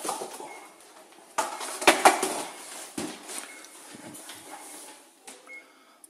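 Plastic rear panel inside a Samsung RSH1 fridge compartment being pulled away from the cooler: irregular plastic clattering and scraping with a few sharp knocks, loudest about two seconds in.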